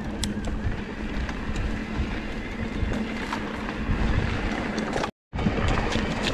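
Wind rushing over the camera microphone and tyres running over rocky singletrack as an electric mountain bike rides the trail, with scattered sharp clicks and rattles from the bike. The sound cuts out for an instant near the end.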